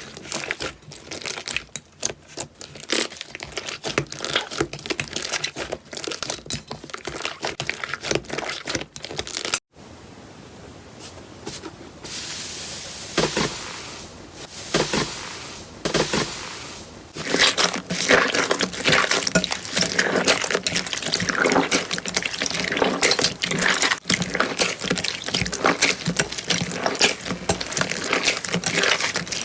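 Slime being squished and stretched by hand: a dense, uneven run of sticky clicks and crackles. A sudden cut about ten seconds in leads to a few seconds of softer, smoother squishing, and the dense crackling comes back near the end.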